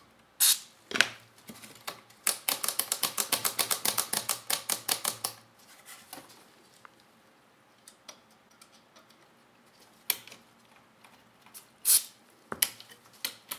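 Short hisses of DeoxIT contact-cleaner spray squirted through the can's extension tube onto an amplifier board's switches, a couple near the start and a couple near the end. In between comes a fast, even run of sharp clicks, about eight a second for some three seconds, as the switches are worked back and forth to spread the cleaner over the contacts.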